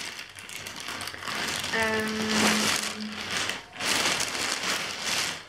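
Plastic mailing bag crinkling and rustling as it is handled and pulled open, with a short steady hum about two seconds in.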